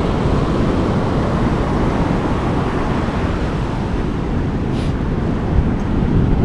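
Steady rush of ocean surf breaking on the beach, with wind buffeting the microphone.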